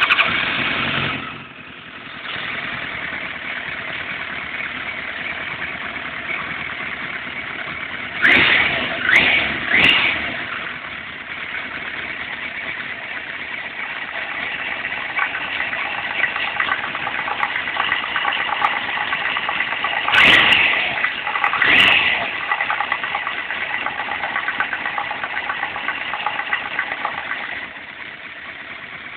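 Kawasaki ZZR1100 (ZX-11) inline-four engine, just started, running fast for about a second before dropping to a steady idle. It is blipped three times in quick succession about eight seconds in and twice more around twenty seconds, with a knock that the owner places around the first cylinder.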